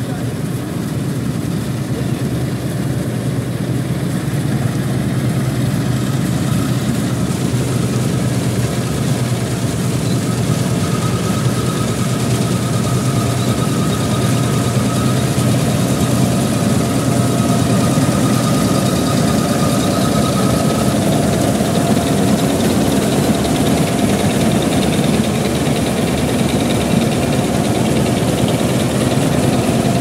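Kartar 4000 combine harvester working in the crop: its diesel engine and threshing machinery make a steady drone that grows louder over the first several seconds as the machine comes closer. A thin steady whine rides above the drone from about ten seconds in.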